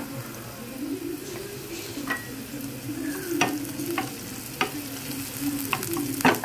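Chopped onions and garlic sizzling in hot oil in a frying pan while a spatula stirs them, scraping and tapping against the pan about half a dozen times.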